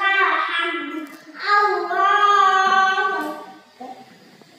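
A young child's voice chanting the salat recitation aloud in a sing-song tone, in two drawn-out phrases, falling quiet about three and a half seconds in.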